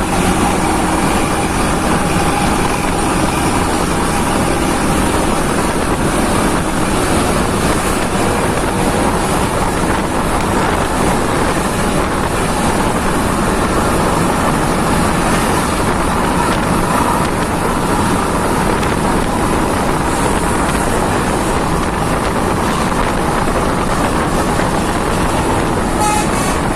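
Steady, loud road-traffic noise of a bus on the move, with horn toots faintly among it.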